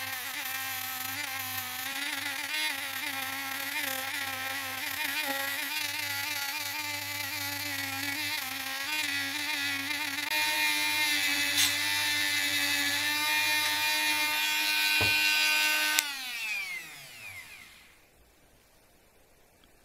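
Small handheld rotary tool with a grinding bit, running against a deer antler: a steady high motor whine that wavers in pitch as the bit bears on the antler. About sixteen seconds in it is switched off and the whine falls in pitch as the tool spins down.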